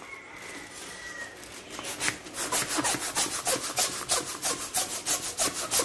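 Hand-held plastic balloon pump worked in quick, even strokes, blowing air into a large foil balloon. The strokes pause for the first two seconds, then come steadily at about three to four a second.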